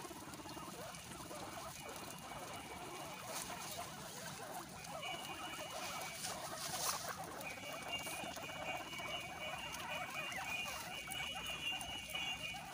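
A crowd of guinea pigs eating freshly cut grass: continuous crunching, nibbling and rustling of stalks as they chew and pull at the pile. A steady high tone comes and goes in the background from about five seconds in.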